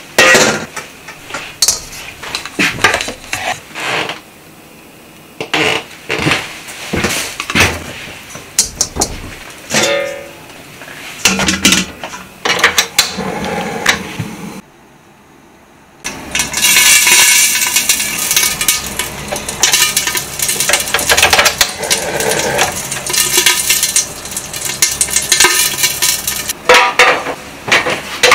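Stainless steel bowl and wok clinking and knocking as they are handled. After a short pause about halfway in comes a long stretch of loud, dense sizzling and crackling: food searing in a wok on a gas burner, under an upturned steel bowl used as a lid.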